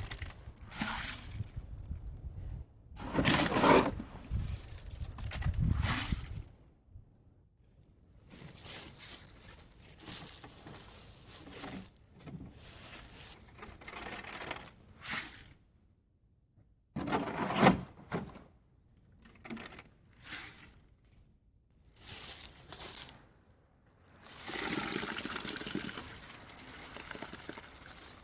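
Shovel scraping and tossing wet concrete into a post hole, in irregular strokes with short pauses, then a few seconds of steady scraping near the end.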